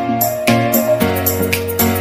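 Background music: a melody with sliding notes over a bass line and a steady beat of about two strikes a second.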